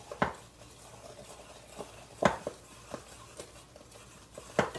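Wooden spoon stirring banana bread batter in a glass mixing bowl, the spoon knocking sharply against the glass several times, loudest about two seconds in and near the end.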